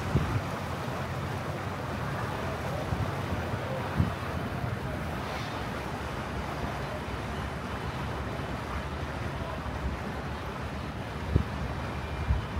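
Water taxi engine running with a steady drone under water rushing past the hull, and wind buffeting the microphone in a few short low thumps.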